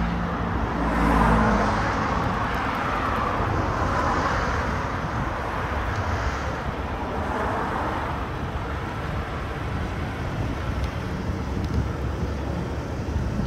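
Road traffic: several vehicles passing one after another, the loudest about a second in, over a steady low rumble.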